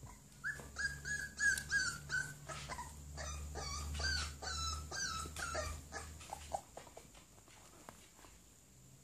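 A dog whining in short, high-pitched cries: a quick run of about seven even notes, then a second run of cries that waver up and down in pitch, fading out after about six seconds.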